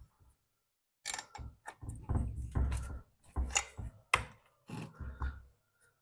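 Irregular clicks, taps and low knocks of hand work on a Husqvarna 455 Rancher chainsaw, starting about a second in: the freshly gapped spark plug being fitted and tightened with a plug wrench.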